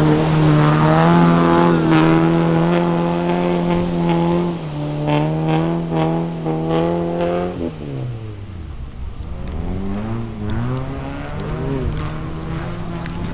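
Off-road racing car's engine running at high, steady revs with a brief dip about four and a half seconds in. About eight seconds in the revs fall sharply, then rise and fall repeatedly as the throttle is worked.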